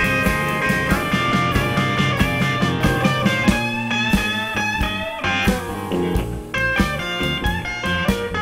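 Electric blues band playing live in an instrumental passage: a lead electric guitar plays quick, bending notes over bass and drums.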